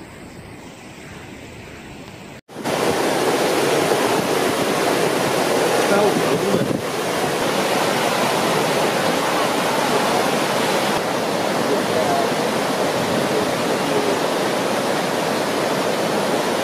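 Fast-flowing floodwater rushing through a street, a loud steady rush of water. The first couple of seconds are quieter, then it cuts suddenly to the loud rushing.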